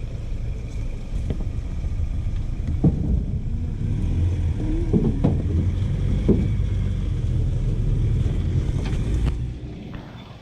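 Vehicle engine running steadily under load, mostly low in pitch, with a few brief rises in pitch; it drops off sharply about nine and a half seconds in.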